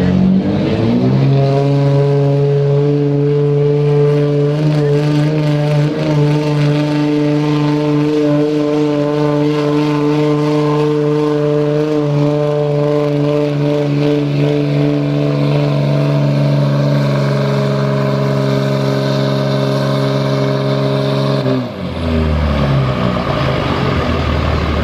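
Dodge Ram pickup's Cummins diesel revving up and held at high, steady revs under full load as it drags a weight-transfer sled. About 21 seconds in, the revs drop suddenly and it settles to a low idle.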